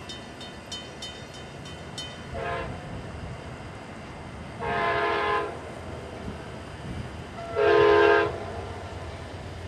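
Air horn of an approaching Amtrak P42DC locomotive sounding in the distance: a faint short blast about two and a half seconds in, then two longer, louder blasts about five and eight seconds in, over a low rumble. Regular ticks, about three a second, stop about two seconds in.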